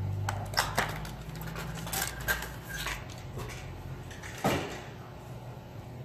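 Clear hard-plastic clamshell packaging of a new 2.5-inch SSD being pried open and handled: a string of sharp plastic clicks and crackles, the loudest about four and a half seconds in.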